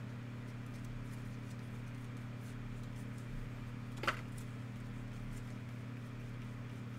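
Trading cards being sorted and shuffled by hand, faint rustling over a steady low hum, with one sharp click about four seconds in.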